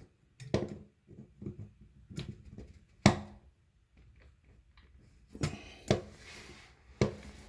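Short clicks and knocks of a copper pipe and a push-in plumbing connector being handled and pushed together, the sharpest knock about three seconds in and two more near six seconds.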